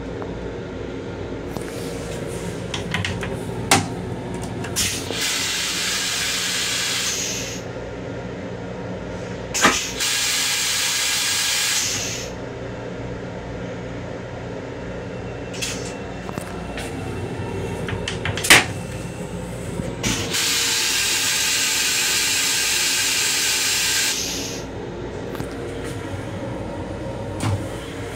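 Long Island Rail Road M7 railcar toilet flushing: three hissing sprays of water, each a few seconds long, the longest near the end, with sharp clicks before them.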